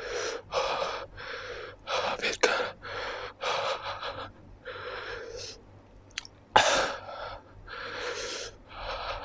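A person taking rapid, hissing gasps in and out through an open mouth, about one breath a second with a short pause past the middle and the sharpest gasp about two-thirds in. This is the panting of a mouth burning from extremely spicy instant noodles.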